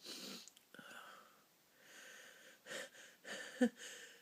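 A person's short, breathy, wheezy inhalations, about six of them, with a brief voiced catch a little over three seconds in: the build-up to a sneeze being held back.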